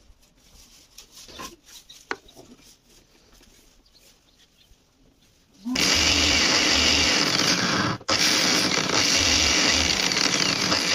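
A few faint handling clicks, then a bench-mounted angle grinder starts just over halfway through and runs loudly with its thin disc grinding a small metal part held against it. It breaks off for an instant about two-thirds of the way through, then carries on.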